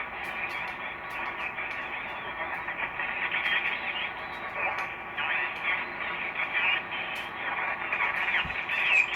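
HTOOL SDR-V5 receiver playing an 11-meter CB single-sideband signal through its speaker: hiss and static with garbled, slightly off-tuned sideband voices and a few steady whistle tones, the audio narrow and tinny.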